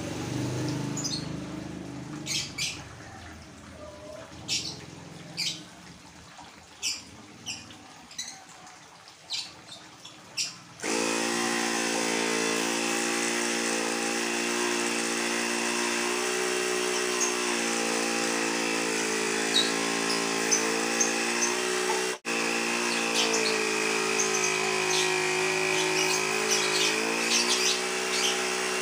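Short bird chirps over a quiet background, then about ten seconds in a mini 12-volt car tyre-inflator air compressor, feeding an airbrush, switches on abruptly and runs with a steady buzzing drone. Birds keep chirping over it.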